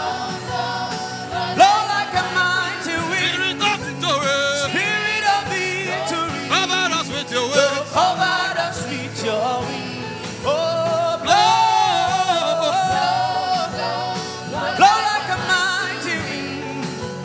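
A gospel worship chant, sung with bending, drawn-out vocal lines over a held keyboard backing and a steady beat.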